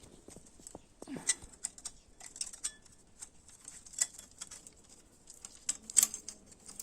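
Irregular light clicks and clinks of small metal engine parts and hand tools being handled during a motorcycle engine teardown, with a sharper knock about six seconds in.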